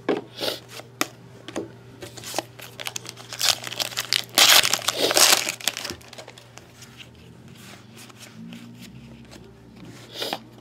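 Trading-card pack wrapper being torn open and crinkled, loudest for about a second and a half in the middle, with sharp clicks and flicks of cards being handled before it.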